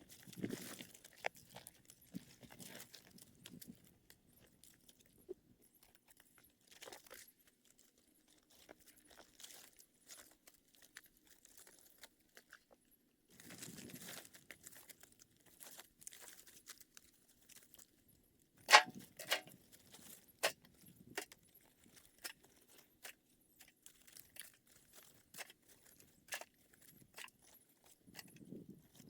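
Dry pieces of tree bark being gathered and dropped onto a pile: scattered crackling, rustling and light knocks, with one sharp, louder knock about two-thirds of the way through.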